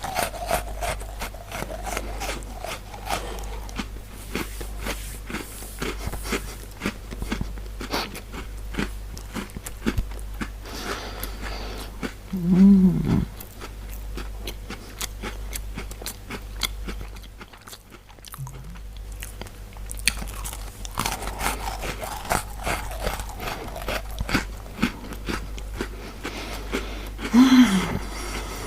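Close-miked chewing and crunching of Ringo cream-filled biscuits, with many small mouth clicks. Twice, about halfway through and near the end, a short, loud, low burp.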